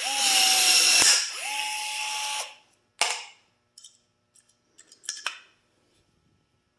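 Milwaukee M12 cordless rivet tool's motor running for about a second as it pulls a rivet, with a sharp snap when the mandrel breaks. The motor runs again for about a second. A sharp click near three seconds in is followed by small clicks and taps.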